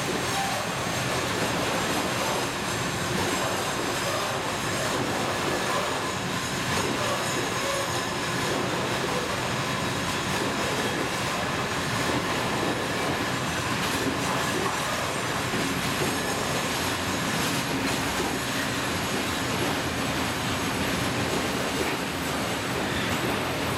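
Freight train of covered hopper wagons rolling steadily past, a continuous noise of wheels running over the rails with no let-up.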